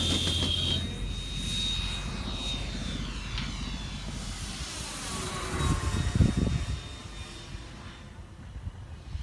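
An aircraft passing over: a loud engine sound with a steady high whine that stops about three seconds in, then the sound slowly fades away.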